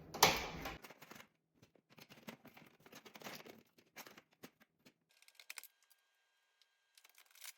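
A sharp knock about a quarter second in, then faint scattered clicks and scrapes of small metal screws and a screwdriver being worked at an oven door hinge.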